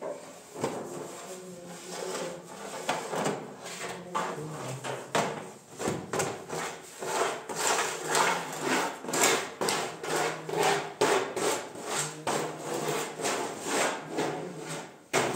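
Hand work on wood: a series of knocks and scraping strokes, sparse at first and then about two to three a second from around seven seconds in.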